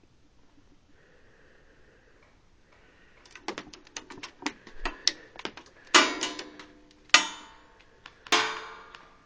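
Scattered light clicks and taps, then three loud sharp cracks about a second apart, each ringing out with a decaying echo.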